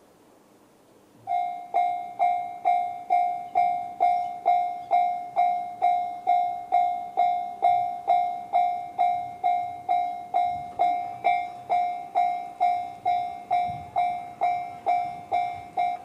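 Japanese railway level crossing alarm sounding the JR standard electronic bell tone: a ringing strike repeating about twice a second, starting about a second in.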